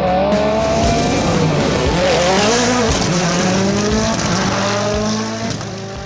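Rally car engine revving hard, its pitch climbing and dropping again and again as it changes gear, then fading out near the end.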